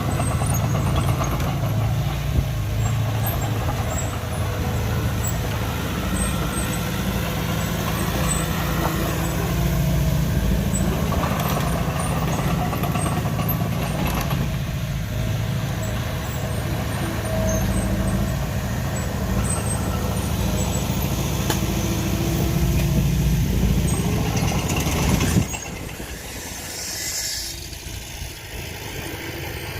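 Diesel engines of heavy earthmoving machinery and dump trucks running steadily under work, dropping sharply to a quieter idle about 25 seconds in.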